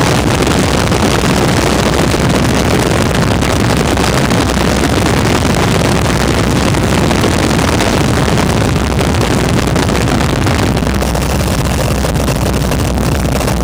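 Open-cockpit WACO biplane in flight: loud, steady engine drone mixed with rushing wind over the open cockpit. The deep engine hum is a little more prominent near the end.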